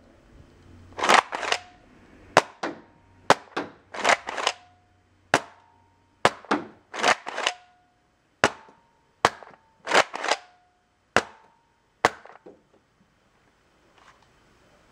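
Nerf N-Strike Elite Rough Cut 2x4, a pump-action spring blaster, being pumped and fired over and over in single-fire mode: a quick run of sharp clicks and pops, often in pairs, some with a short ringing tone after them. The firing stops about three-quarters of the way through.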